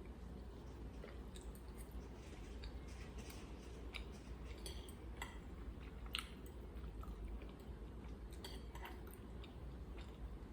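Close-miked chewing of food, with scattered short wet clicks and crackles from the mouth, over a steady low hum.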